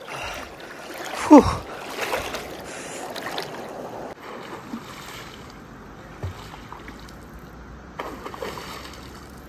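River water sloshing and splashing around someone moving through it, with a brief louder falling sweep about a second in.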